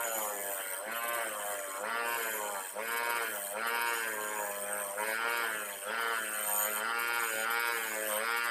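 Bench grinder (Powertec PT-305) spinning a wire brush wheel against a rusty Honda CD-70 front brake hub to strip rust. The motor's hum dips in pitch and recovers again and again, a little faster than once a second, over a steady hiss of wire bristles scratching the metal.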